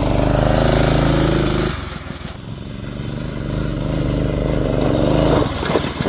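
Gas go-kart engine running hard under throttle, easing off after about two seconds, then building up again and dropping off near the end.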